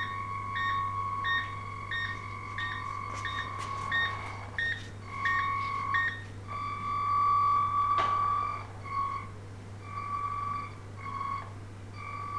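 Electronic beeping at one fixed pitch: for the first four seconds a held tone with short chirps about twice a second, then separate beeps of varying length, some about a second long, others brief. A steady low electrical hum runs underneath.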